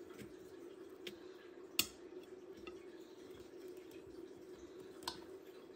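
Table knife clicking against a ceramic plate as it cuts through a banana: a few sharp clicks, the loudest about two seconds in, over a steady low hum.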